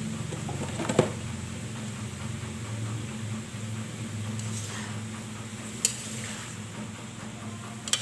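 Kitchen sounds during cooking: a steady low hum with three sharp knocks, about a second in, near six seconds and at the end.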